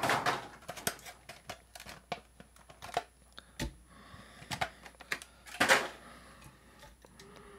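Hot Wheels blister pack being opened by hand: a string of sharp plastic and cardboard clicks and crackles, with one louder tearing crackle about two-thirds of the way through.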